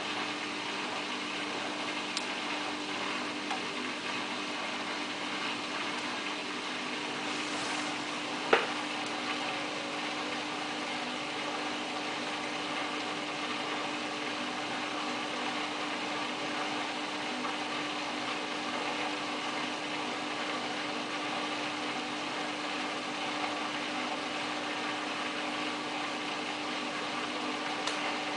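Samsung WF8804RPA front-loading washing machine running in its service test mode: a steady mechanical hum with no rise in pitch. A single sharp click about eight and a half seconds in.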